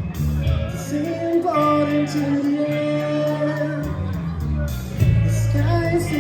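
Live rock trio of electric guitar, bass guitar and drums playing a song, with long held notes over a steady drum beat.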